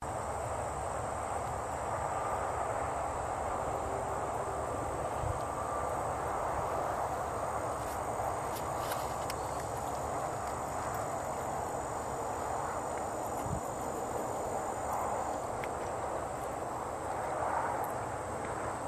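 Steady high-pitched buzz of insects over an even background hiss and low rumble.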